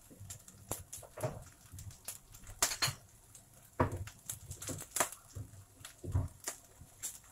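Onion pieces frying in hot oil in a nonstick pan, the oil sizzling with irregular crackles and pops, several a second.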